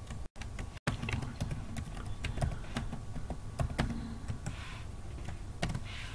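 Typing on a computer keyboard: irregular key clicks as a login email and password are entered, broken by two brief cuts to silence within the first second.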